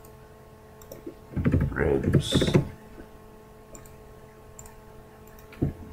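A few faint, scattered computer keyboard keystrokes as a bone name is typed, over a steady faint electrical hum.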